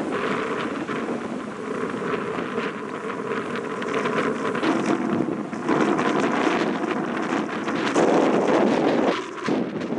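Wind buffeting the microphone in uneven gusts, loudest in the second half.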